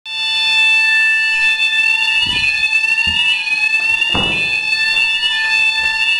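Building fire alarm sounding continuously: a shrill tone that sweeps upward and resets about once a second over a steady electronic tone, which the uploader labels an error. A few dull knocks come in underneath around the middle.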